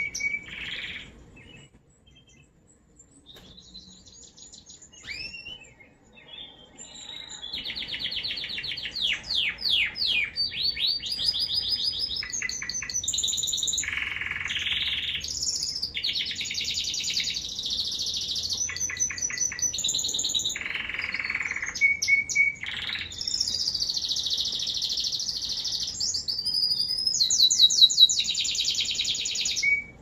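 American Singer canary singing. A few short chirps come in the first seconds, then a long unbroken song of rapid trills, rolls and held whistled notes. It is loudest in a fast trill near the end.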